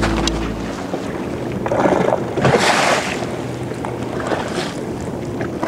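Strong wind gusting across the microphone over choppy lake water slapping around the boat, swelling in surges about two seconds in and again after four seconds.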